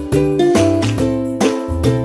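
Background music: an upbeat acoustic ukulele track, plucked chords struck in a steady rhythm over a bass line.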